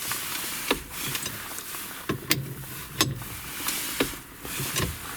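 Hands and tools working on a steering wheel boss on the column: a handful of sharp, irregularly spaced clicks and knocks over a faint hiss.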